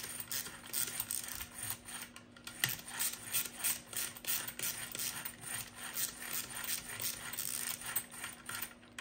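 A run of light mechanical clicks, about three or four a second, as a hex driver tightens the gear-plate screws on a 1/5-scale RC car's engine mount while the drivetrain is spun by hand to check for binding.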